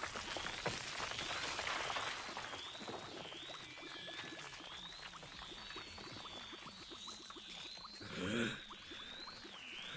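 Anime fight sound effects: a dense crackle and patter of falling rubble under a thin, high, warbling tone. A short low grunt comes about eight seconds in.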